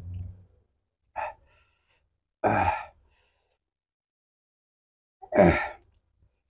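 Mouth sounds of a man eating spicy chilli-sambal noodles with chopsticks: a soft low thud at the start, then three short, sharp, breathy bursts, the loudest near the end. These are slurps and hard breaths drawn against the chilli heat.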